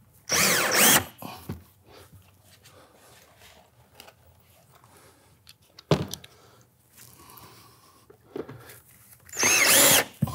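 Cordless drill driving threaded fasteners through metal sidewall flashing into the wall: two short runs of the motor, its whine rising and falling, one just after the start and one near the end. A single sharp knock about six seconds in.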